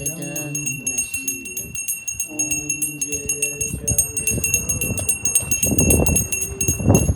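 A bell is rung rapidly and continuously with a steady ringing tone, under a chanted devotional hymn sung in short phrases. From about halfway through, gusts of wind rumble on the microphone.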